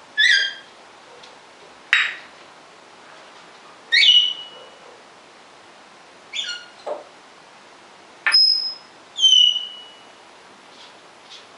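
African grey parrot giving a series of about seven short whistles and calls, one every second or two, two of them ending in a short held whistle.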